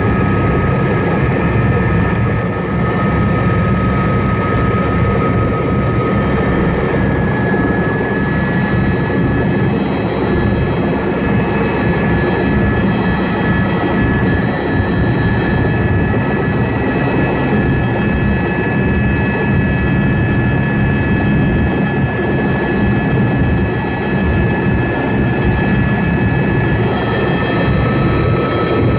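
Helicopter in flight, running steadily: a dense, loud engine and rotor noise with several steady high-pitched whine tones above it.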